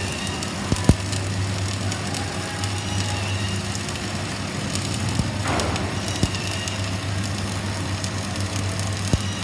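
Electric arc welding on ducting pipe: the arc crackles steadily over a constant low electrical hum, with scattered sharp clicks and a brief louder burst of crackle about halfway through.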